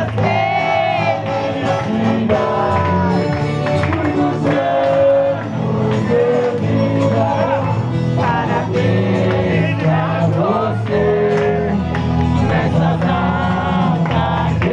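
Live sertanejo music with singing over a continuous accompaniment.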